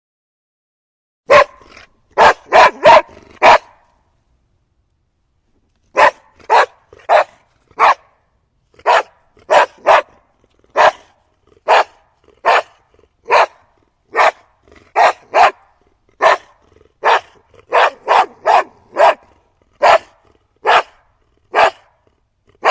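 A large dog barking: a quick burst of five barks, then after a short pause a long run of single barks at a steady pace of roughly one a second, some doubled or tripled.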